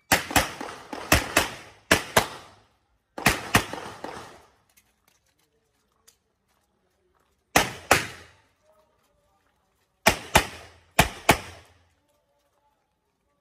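Pistol shots fired in quick pairs, each pair about a third of a second apart: three pairs in the first two seconds, one more just after, a pause of about three seconds, then three more pairs spread over the rest.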